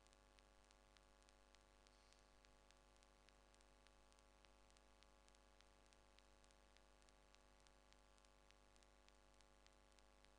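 Near silence: a faint steady hum with faint clicks several times a second.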